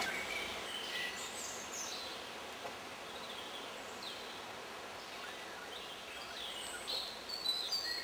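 Outdoor background ambience: a steady hiss with scattered short, high bird chirps and calls, coming more thickly near the end.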